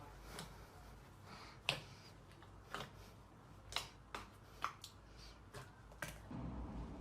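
Slime being pressed and poked, giving a string of sharp clicking pops about once a second. Near the end a steadier low hum starts suddenly.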